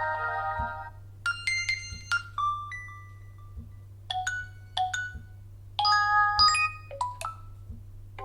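A Nokia 3 phone speaker plays short notification tones one after another. Each is a quick group of a few bright chiming notes, with pauses between the groups, and a held tone fades out in the first second.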